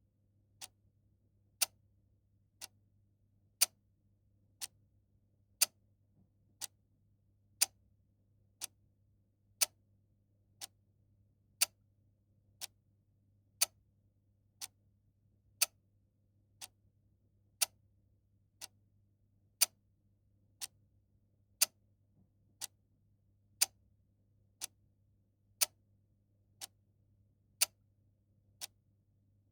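A mechanical clock ticking about once a second in a steady tick-tock, the strokes mostly alternating louder and softer, over a faint steady low hum.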